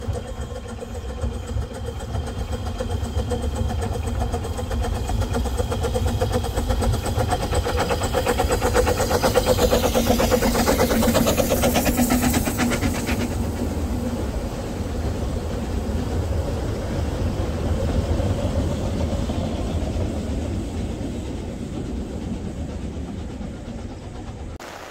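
Narrow-gauge steam train passing close: the locomotive working, then its carriages rolling by on the track. The sound builds to its loudest about halfway through and fades away as the train recedes, cutting off just before the end.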